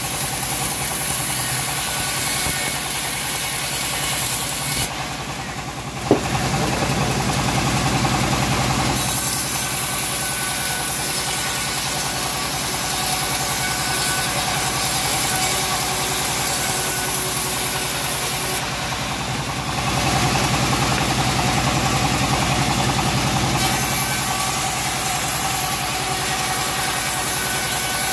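Homemade bandsaw mill running steadily while its blade rips teak into boards, with a high hiss during the cut. The cutting hiss drops out around five seconds in and again near nineteen seconds, while the drive keeps running. A single sharp knock comes about six seconds in.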